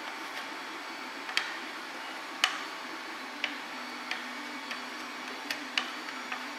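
Irregular sharp clicks, roughly one a second, from a plastic squeegee knocking on the glass heat bed as MonoKote film is pressed down and its edges stuck. A steady low hum runs underneath.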